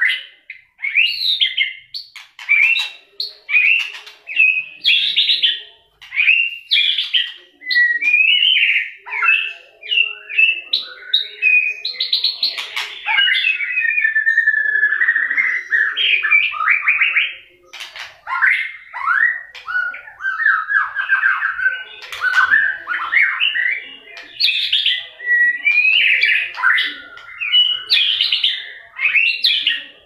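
White-rumped shama singing hard in fighting song: a fast, continuous run of varied whistled phrases, trills and sharp clicking notes, with only a couple of brief breaks.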